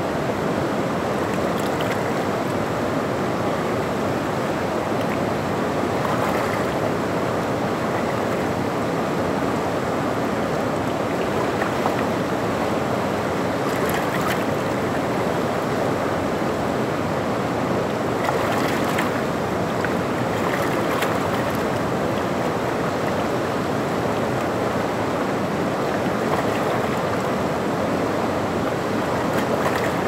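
Fast-flowing stream water rushing over rocks and around tree roots: a steady rush, with a few brief brighter splashes now and then.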